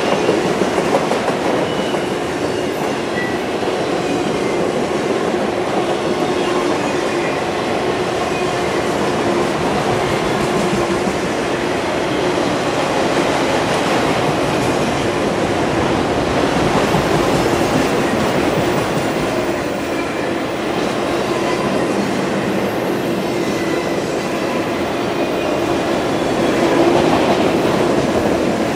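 Empty autorack freight cars of a CSX train rolling past at speed: a steady rumble and rattle of steel wheels on the rails.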